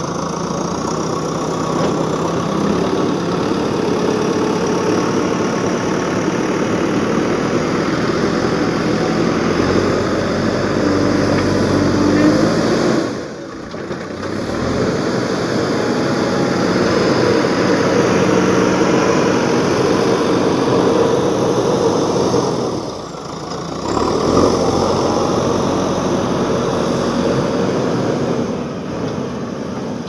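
JCB 3DX backhoe loader's diesel engine running steadily, its sound briefly dropping away twice, about halfway and two-thirds of the way through.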